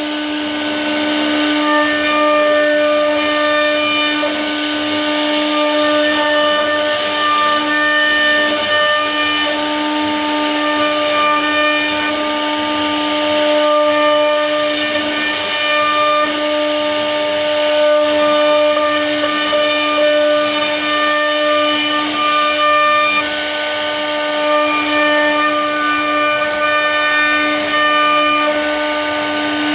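CNC router spindle running with a steady high-pitched whine while its bit carves an ornamental relief into a wooden panel, over the hiss of the cut.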